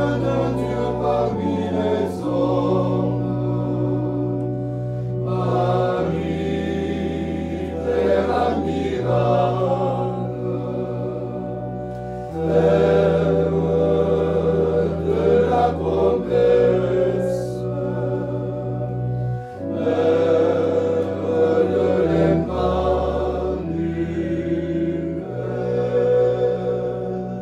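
Men's choir singing a slow chant-like hymn in French, over long held bass notes that change every few seconds.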